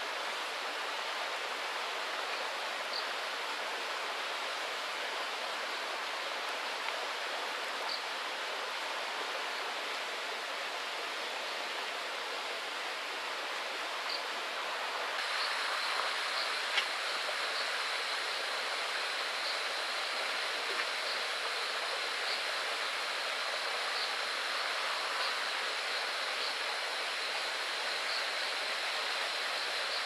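Steady rushing of flowing stream water. About halfway in the sound gets a little brighter and a thin high tone joins it, with a faint tick about once a second.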